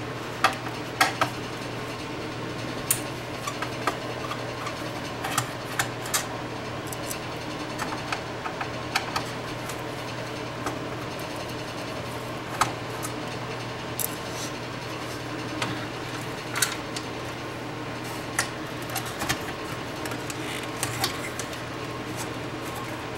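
Screwdriver undoing the screws that hold voltage regulators to the metal chassis of an AV receiver: scattered small clicks, ticks and scrapes of metal on metal, over a steady low hum. Near the end the freed regulator board is handled and lifted out.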